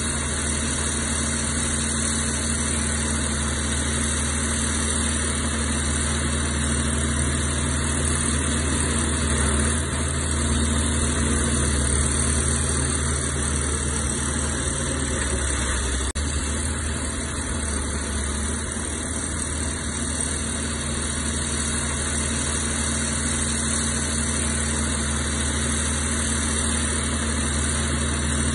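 Komatsu D61EX bulldozer's diesel engine running at a steady speed, a continuous low drone that does not change in pitch.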